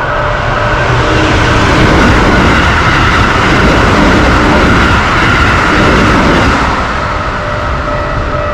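Keikyu electric train passing through a level crossing at high speed. A rushing rumble swells about a second in and dies down about seven seconds in. Under it the crossing's alarm bell keeps ringing in a steady repeated tone, which stands out again near the end.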